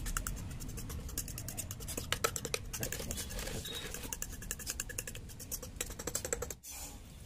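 Metal fork scraping and clicking against a ceramic plate while stirring a thick marinade paste, in quick, uneven strokes.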